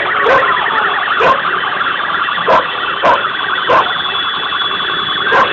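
Several vehicle sirens warbling at once in a motorcade, with about six sharp cracks spaced unevenly through it.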